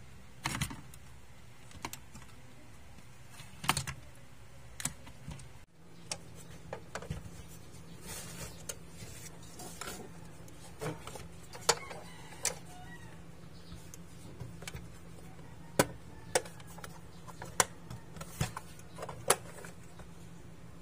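Scattered sharp clicks and knocks of hands handling a plastic portable AM/FM radio's case, over a steady low hum.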